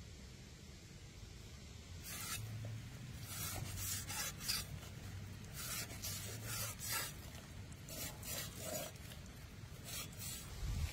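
Large knife blade scraping the skin of a raw pork leg in a series of short rasping strokes, beginning about two seconds in.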